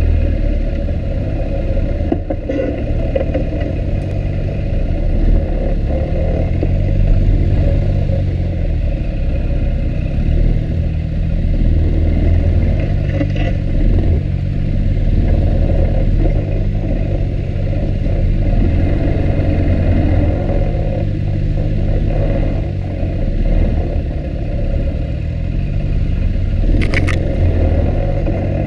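Off-road vehicle engine running at low trail speed, its pitch rising and falling as the throttle opens and closes. Rattles and scrapes come through as it bounces over the rough dirt trail, with a sharp click near the end.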